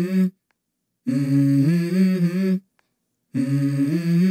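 A low hummed melody in phrases of about a second and a half, each moving stepwise between a few held notes, with short silent gaps between phrases.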